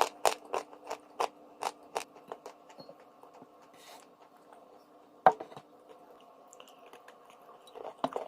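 Close-up chewing of crunchy dry chalk: sharp crunches about three a second, dying away about two and a half seconds in, then one loud crunch a little after five seconds and a few more near the end.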